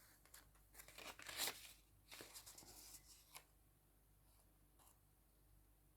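Faint rustling and crinkling of paper and packaging being handled, in a few short bursts in the first half, strongest about a second and a half in, then very quiet.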